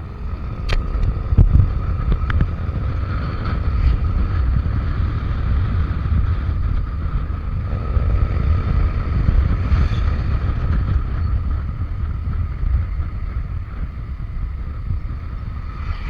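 Riding on a Suzuki Avenis 125 cc scooter: a heavy low wind rumble buffets the microphone over the scooter's running engine, with a steady high whine throughout. A few sharp clicks come in the first couple of seconds.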